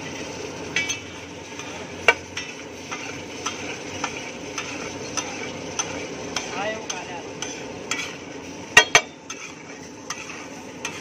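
Bhaji gravy sizzling on a large flat iron griddle (tawa), with a flat metal spatula scraping and clacking against the griddle as it is stirred. The loudest knocks come about two seconds in, and a quick pair come near the end.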